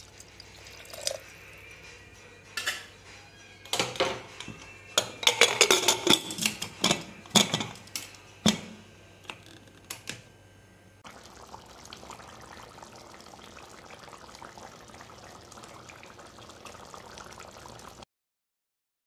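Water poured into a pressure cooker, then a run of sharp metal clanks and knocks as the Hawkins pressure cooker's lid is fitted and closed. After that comes a steady even noise, which cuts off suddenly near the end.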